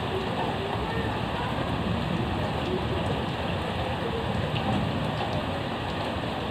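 Heavy rain falling steadily, an even hiss of rain on surfaces.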